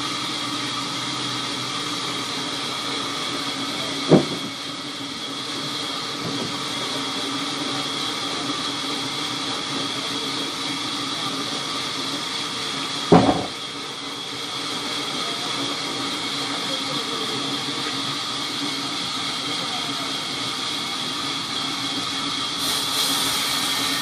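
A sawmill band saw runs steadily with a high whine and hiss while a rain tree log is fed through it. Two sharp knocks stand out, about four seconds in and about thirteen seconds in.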